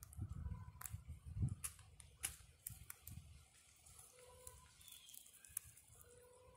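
Rabbit nibbling and chewing fresh leaves: faint, irregular crisp clicks and crunches. A low rumble runs under the first two seconds or so.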